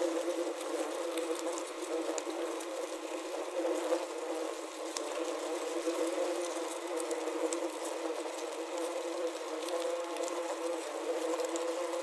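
Many yellowjacket wasps buzzing inside a plastic wasp trap, heard through a contact microphone clipped to the trap, which gives a steady, layered buzz. Light ticks and tapping run through it as wasps strike and crawl on the plastic walls.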